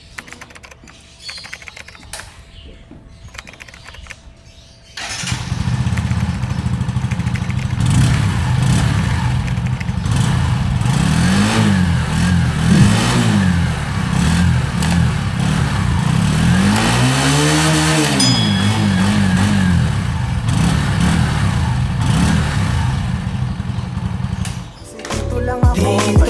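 Kawasaki Rouser NS125 FI's 125cc air-cooled single-cylinder four-stroke engine starting after a few seconds of quiet, idling, and being revved in a few short blips followed by one longer rev about two-thirds of the way through. It cuts off near the end.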